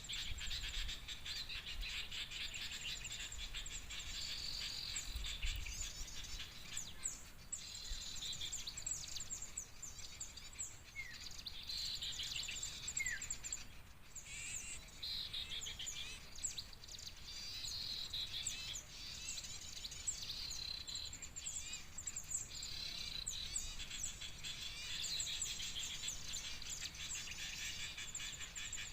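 Dense, continuous high-pitched chattering of many small birds, with a couple of short rising whistles near the middle.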